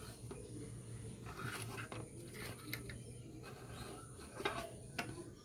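Faint handling noise from a plastic welding-helmet head strap being worked by hand: soft rustling with a few scattered sharp clicks.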